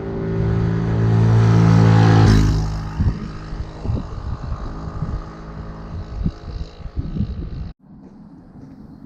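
A motor vehicle engine growing louder and passing close, peaking about two seconds in, then a lower rumble with wind knocking on the microphone. The sound cuts off abruptly near the end.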